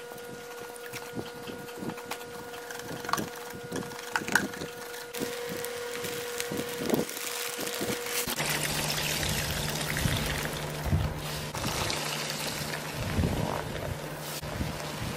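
Powdered cleanser shaken and poured onto wet sponges in a tub of water, with short taps and patters. In the later part a powder-caked sponge is squished and squeezed in the water. A steady hum runs underneath and drops in pitch about eight seconds in.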